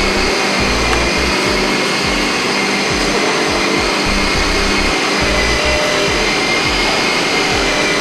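Lab-scale stainless process kettle machine running: a steady mechanical whine over a loud, even hiss.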